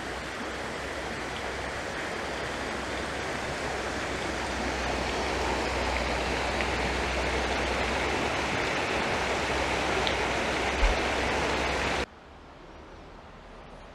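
Steady rush of flowing water, slowly growing louder, with a brief low thump about eleven seconds in; about twelve seconds in it cuts off abruptly to a much quieter hiss.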